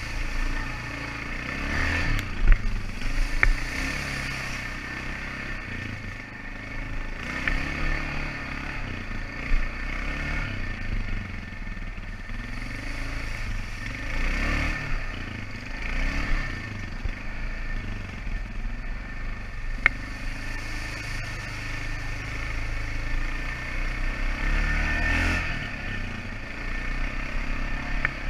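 A 450cc ATV engine running on a trail, its revs rising and falling, with a few sharp knocks along the way.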